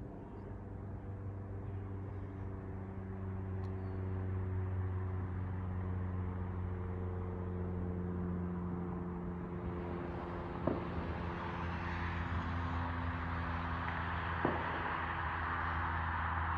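An engine idles steadily with a low, even hum. From about ten seconds in, a rushing noise grows louder over it, and there are a couple of faint clicks.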